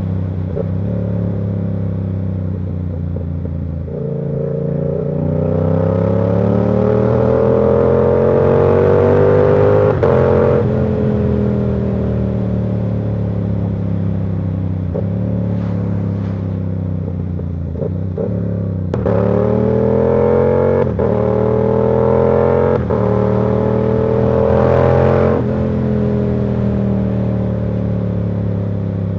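Yamaha R7's 689 cc parallel-twin engine, through an aftermarket KO Lightning exhaust, on the road under acceleration: the revs climb for several seconds, ease off, then climb again about two-thirds of the way through before dropping back.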